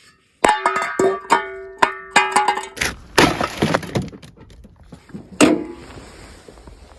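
A short burst of plucked-string music, a quick run of ringing notes, followed by a noisy rush and a sharp knock about five and a half seconds in.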